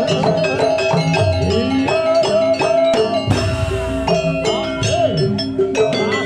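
Live jaranan ensemble music: drums and struck metal percussion keeping a busy rhythm, with many short ringing notes over a few held tones.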